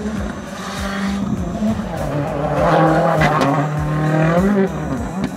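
Turbocharged rallycross race car running hard through a bend on a loose gravel surface. The engine note builds to its loudest about three seconds in, then drops a little in pitch and fades as the car pulls away.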